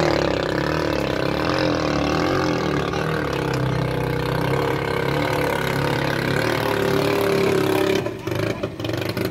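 Small 6.5 hp longtail (ketinting) boat engine running steadily, its pitch wavering up and down in the middle and holding steady later. It drops in level about eight seconds in.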